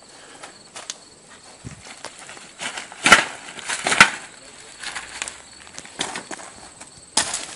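Heavy blows struck against a glass window coated with security film: several sharp impacts, the loudest two about a second apart midway and another near the end.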